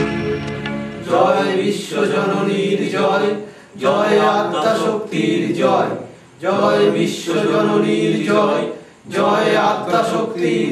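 Devotional hymn sung by a chorus of voices in four phrases, with short breaks between them. A held instrumental chord fades out in the first second.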